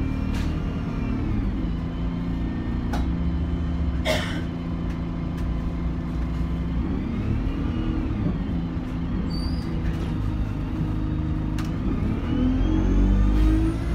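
Alexander Dennis Enviro200 single-deck bus heard from inside the saloon while under way: the engine and transmission run steadily, drop in pitch and pick up again about seven to eight seconds in, then rise as the bus accelerates near the end. A short hiss about four seconds in.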